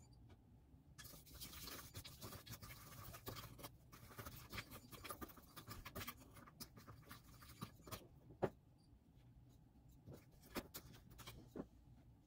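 A wooden spoon stirring damp coffee grounds in a glass bowl: a faint, gritty scraping with many small clicks of the spoon against the glass. After about eight seconds it thins to scattered taps, with one sharper click among them.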